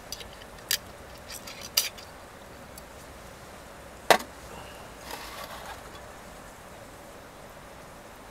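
Light clicks and knocks of a glass bottle and steel tableware being handled on a table, with one sharp clink about four seconds in, followed by brief rustling.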